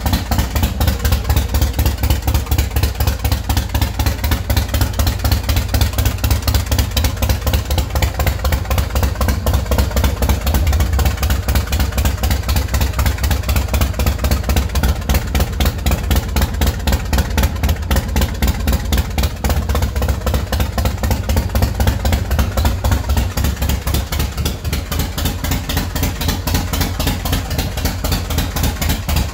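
Big Dog Mastiff's carbureted S&S 117 V-twin engine idling with a steady, even pulse, just after a cold start. The loudness dips slightly for a few seconds past the middle, then recovers.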